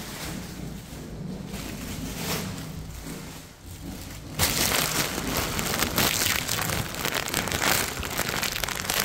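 Crinkling, crackling rustle close to the microphone. It becomes suddenly much louder about four and a half seconds in and stays dense and crackly.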